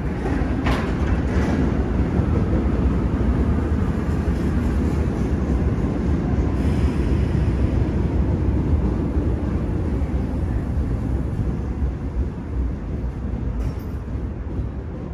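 Seoul Subway Line 1 electric multiple unit pulling into the platform: a steady low rumble of wheels and motors, with a falling whine about a second in and a brief hiss around seven seconds in, easing off as the train slows near the end.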